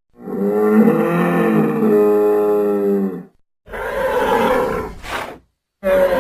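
Arsinoitherium creature sound effect, made from large-animal recordings such as rhinoceros, moose and bull: one long call of about three seconds, then after a short pause a shorter, rougher call, and a third call starting near the end.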